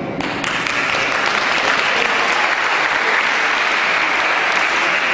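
Audience clapping, beginning a moment in and keeping up steadily as applause for an announced prize-winner.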